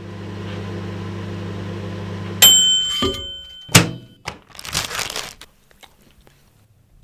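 A Sharp dial-control microwave oven hums steadily as it runs, then its timer bell dings about two and a half seconds in and the hum stops. A knock follows, then a sharp clunk as a food tray is set down on a plate, and a second of scraping and rustling.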